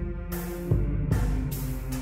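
Soundtrack music: sustained low tones with two deep drum strikes about two-thirds of a second and a second in, and swells of high hiss.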